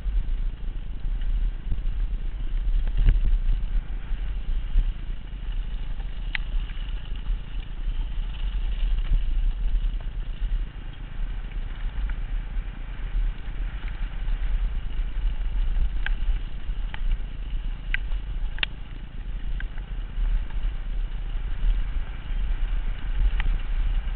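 Wind buffeting a helmet-mounted camera's microphone as a downhill mountain bike rolls fast down a gravel track: a steady low rumble, with occasional sharp clicks and rattles from the bike over the stones.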